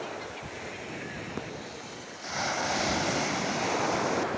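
Sea surf breaking and washing onto a sandy beach, with a wave crashing louder about two seconds in.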